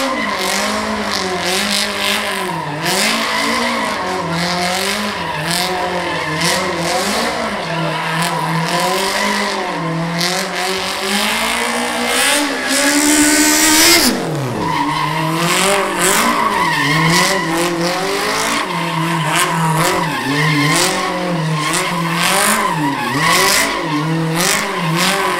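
Smart car spinning donuts: the engine revs rise and fall about once a second while the tyres squeal and skid on the tarmac, with a louder, higher stretch a little past halfway.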